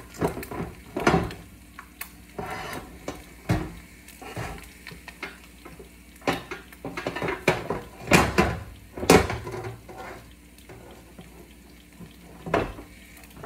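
Irregular knocks, clicks and clatter of hands working at a kitchen microwave, with scraping between the sharper knocks.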